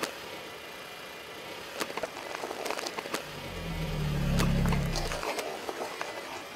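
Car engine revving up and easing off for about two seconds midway, after a stretch of scattered light clicks and crackles from the tyre on gritty asphalt.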